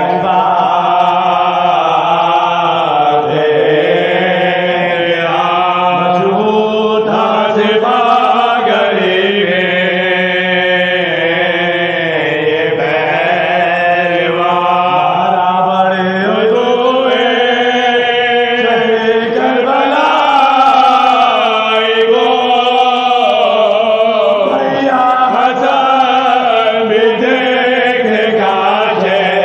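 Soz khwani, the Urdu elegiac lament, chanted by a group of male voices. They sing long, wavering held notes that slide between pitches, over a steady low drone.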